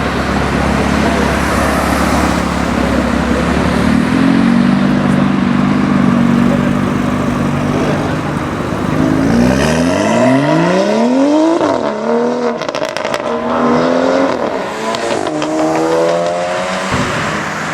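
Turbocharged straight-six of a tuned BMW M235i with a catless exhaust, held at steady revs, then accelerating hard from about nine seconds in, its pitch climbing and falling back at each gearchange, with a few sharp cracks from the exhaust partway through.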